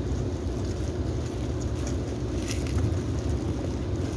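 Steady low rumble, with a few faint wet squishes from chicken pieces being mixed by hand in a yogurt and spice marinade.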